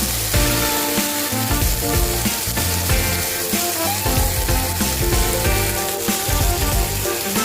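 Background music with a melody and bass line, over a steady sizzling hiss of food frying in a pan.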